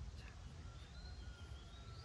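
Faint, thin, high-pitched animal calls, drawn out and gliding slightly in pitch, over a low steady rumble.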